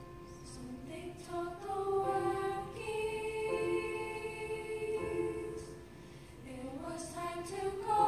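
Middle school chorus singing a slow phrase in held notes, the voices stepping upward into new notes about a second in and again near the end.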